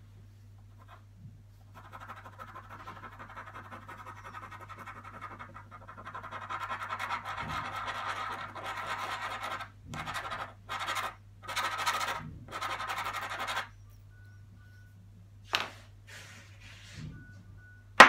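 Ballpoint pen scribbling on a sheet of paper: rapid back-and-forth hatching strokes that grow louder after a few seconds, with short pauses, stopping about 14 seconds in. Near the end a wooden cup-shaped object is set down on the desk with a sharp knock, the loudest sound.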